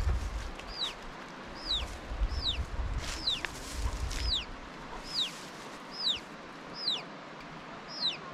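A bird's high, clear note sliding down in pitch, repeated steadily a little more than once a second. Wind rumbles on the microphone during the first few seconds.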